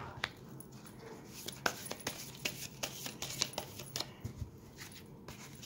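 Tarot cards being handled and drawn from the deck: an irregular scatter of soft clicks and flicks of card against card.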